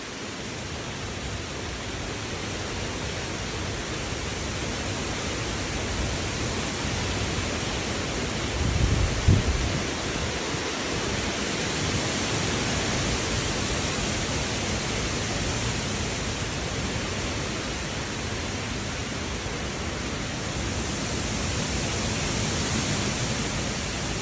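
Steady rushing of strong hurricane winds, swelling and easing slowly. There is a brief low thump about nine seconds in.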